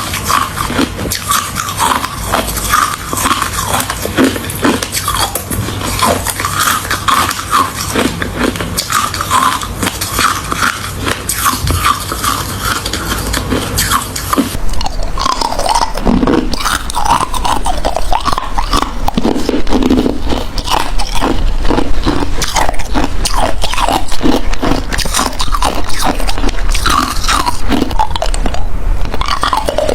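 Ice being chewed and crunched between the teeth, close to the microphone: a dense, continuous run of crunches. About halfway through, the sound changes character, as if from another recording.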